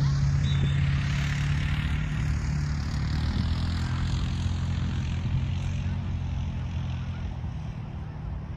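Propeller airplane passing, a steady engine drone whose higher tones fall in pitch, fading over the last few seconds.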